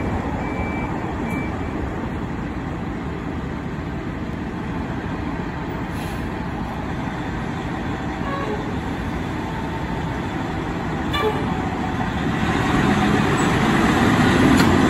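Fire engine's diesel engine running in the station bay, growing louder near the end as the engine pulls out of the bay, with a brief blip a little past the middle.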